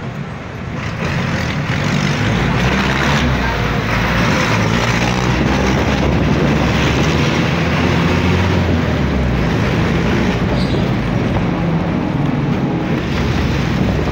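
Engine and road noise heard from inside a moving road vehicle: a steady low engine drone under a broad rush of traffic noise, growing louder about a second in.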